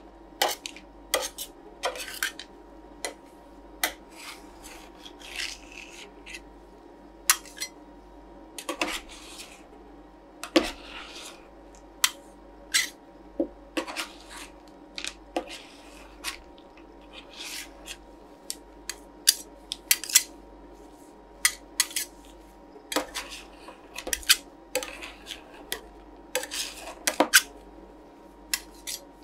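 Two metal spatulas scraping, tapping and chopping on the chilled steel plate of a roll ice cream machine, working freezing cream and chocolate lentils. The clicks and scrapes come irregularly, several a second at times, over a steady low hum.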